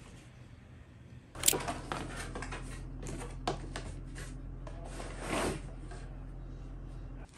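Cardboard box of a steam mop being opened and its contents lifted out: a sharp knock about a second and a half in, then scattered taps and a cardboard rustle and scrape, over a low steady hum.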